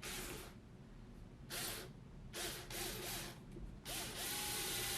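Cordless drill boring into a plastic mop head: several short trigger pulls, the motor briefly spinning up and down, then a steady run from about four seconds in.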